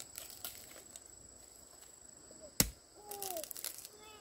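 A single sharp chopping blow of a blade, about two and a half seconds in, one of a steady series of chops. Under it runs a faint, steady, high insect drone.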